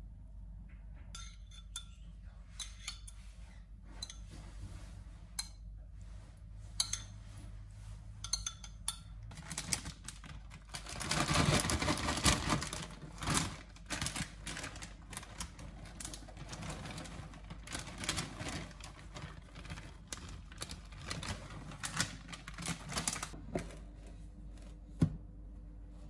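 Kitchen handling sounds: scattered light clicks and taps of food and utensils against a metal baking tray, over a low steady hum. A louder stretch of scraping and rustling comes about eleven seconds in, and one sharp knock near the end.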